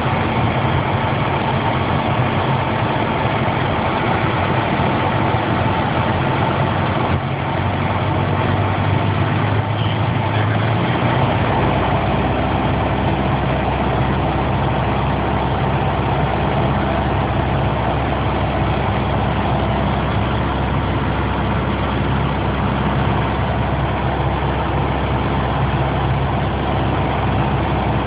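Piper PA-28 light aircraft's piston engine and propeller running steadily in cruise, heard as a constant loud drone from inside the cabin. A deeper steady hum joins about eleven seconds in.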